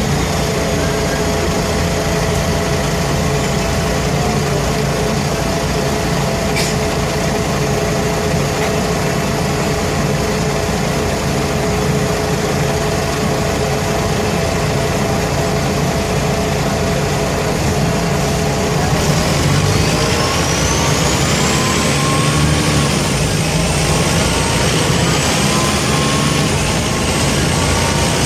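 Mercedes-Benz O345K articulated bus's OM447hLA straight-six diesel running steadily through a burst exhaust. About two-thirds of the way in, the engine note climbs as the bus pulls away, with a high whine rising above it.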